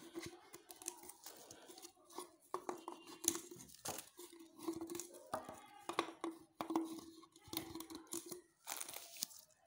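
Cosco Aero 700 nylon shuttlecocks and their packaging being handled: a run of crinkling rustles and light plastic clicks as the shuttles come out and are set down one by one.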